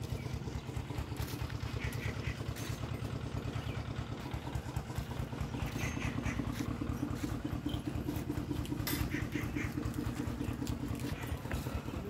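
An engine running steadily, a low even throb with a few faint clicks over it.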